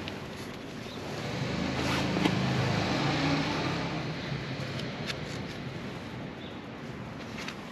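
A motor vehicle passing by: its engine sound grows over about two seconds, peaks, then fades away. A few faint clicks follow near the end.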